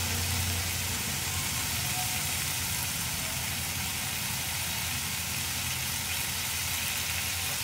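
Chopped vegetables sizzling steadily as they fry in a ghee tempering in an open pressure cooker.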